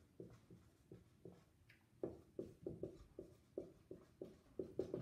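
Dry-erase marker writing on a whiteboard: a run of short, faint strokes, sparse at first and quicker, about four a second, from about two seconds in.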